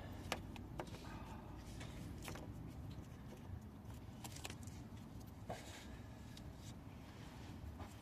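Scattered light clicks and taps of parts and tools being handled, over a steady low hum.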